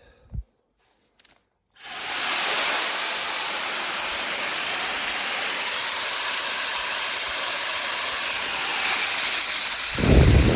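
SnugLuv high-speed hair dryer switched on about two seconds in, its fan blowing with a steady airy hiss. Near the end a loud low rumble joins it.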